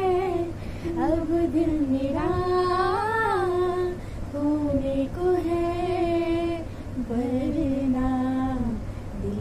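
Young women singing a song together without accompaniment, in phrases of long held notes.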